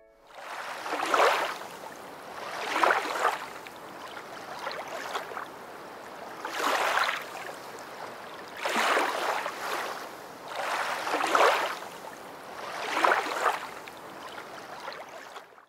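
Ocean surf: waves breaking and washing up on the shore, swelling and falling back every couple of seconds.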